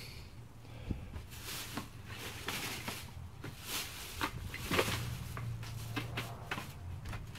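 Clear plastic trash bag crinkling and rustling in irregular bursts as a pole pokes and pushes through the papers and books inside it.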